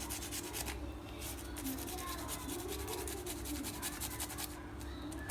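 Quick, even scraping or rubbing strokes, many a second, in short runs with brief pauses: hand work at the kitchen counter.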